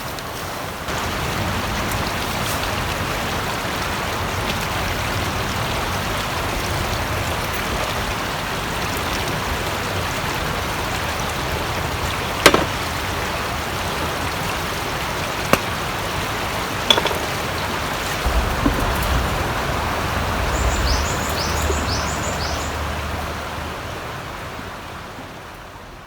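River water flowing steadily, with a few sharp clicks along the way; the sound fades out near the end.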